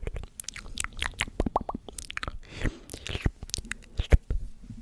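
Close-miked ASMR mouth sounds: a rapid, irregular run of wet clicks, pops and smacks of tongue and lips, with short breathy sounds between them.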